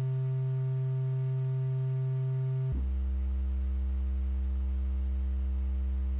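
Triangle-wave tone from the TAL-NoiseMaker software synthesizer, held on one low note and then dropping an octave about three seconds in.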